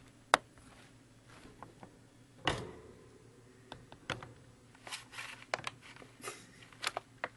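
Light rustling and scattered clicks of a guinea pig nosing about in its cage bedding, with one sharp click about a third of a second in and a busier patch of rustles and clicks in the second half.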